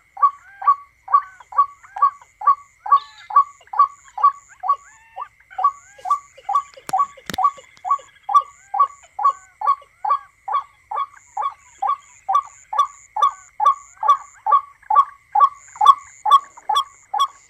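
Recorded bird call played on a loop through a speaker as a lure for a night mist-net trap: one short, falling call repeated evenly, about two and a half times a second, over a faint steady high whine. A single sharp click comes about seven seconds in.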